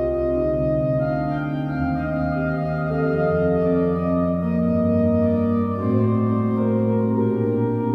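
Pipe organ playing slow, sustained chords, with the held notes changing every second or two.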